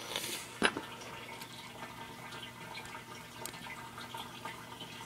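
Light clicks and taps of small metal parts being handled while the rear post is fitted back onto a coil tattoo machine, with one sharper knock just under a second in.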